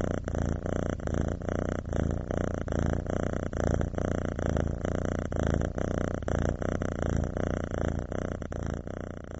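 Domestic cat purring close to the microphone: a steady low purr that swells and fades in an even rhythm with each breath.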